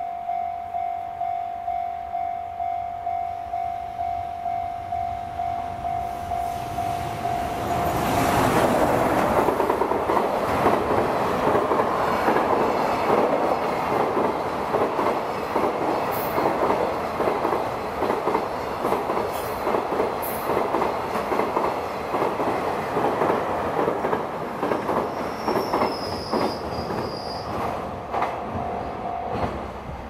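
Japanese level-crossing warning bell ringing about twice a second. About eight seconds in, a JR Freight EF210 electric locomotive and its freight wagons pass, wheels clattering rhythmically over the rail joints, with a brief high squeal near the end. The bell is heard again just before it stops.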